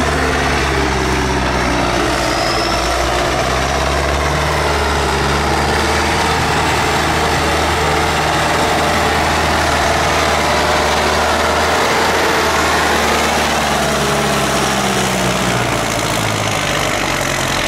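Tractor engine running steadily, its pitch easing down near the start and rising and falling again later on.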